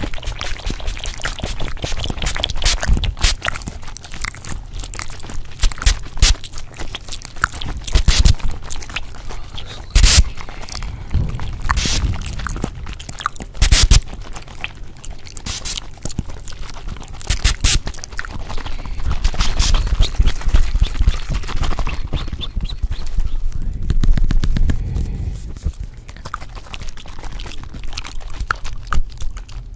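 Layered close-miked ASMR trigger sounds: a dense, irregular run of clicks, crackles and taps, with a few sharper knocks and a low rumble underneath.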